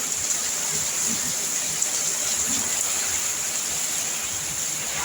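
Heavy hurricane rain pouring in a steady hiss.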